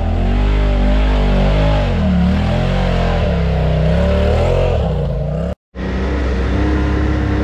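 Side-by-side UTV engine revving up and down several times. The sound drops out for a moment about five and a half seconds in, then comes back as a steadier engine note.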